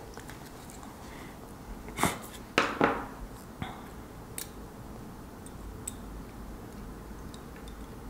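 Pliers and thin metal resistor leads clicking and clinking as the leads are wrapped around LED pins: a sharp clack about two seconds in, two more just after, then a few faint ticks.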